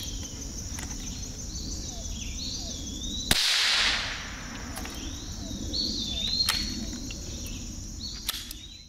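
A single gunshot crack about three seconds in, with a short noisy tail, dispatching a trapped raccoon. Insects trill steadily and a bird sings repeatedly throughout.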